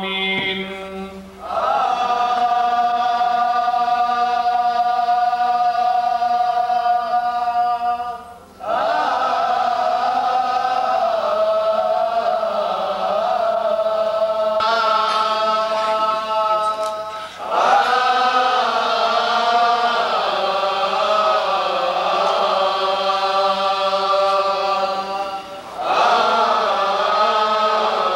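Coptic liturgical chant: long, slowly wavering sung phrases, each held for several seconds and broken by a short pause for breath, about four times.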